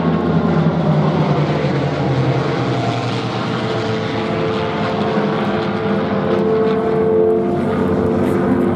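Aircraft engines of a low formation flypast of an F-22 Raptor with three piston-engine propeller fighters: a steady drone whose pitch slides slightly down over the first few seconds, then holds.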